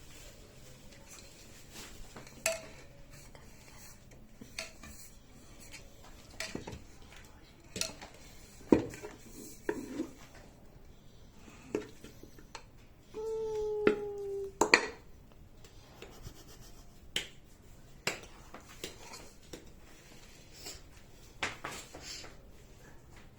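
Kitchen dishes and utensils being handled: scattered clinks and knocks, with a short squeaky scrape about thirteen seconds in.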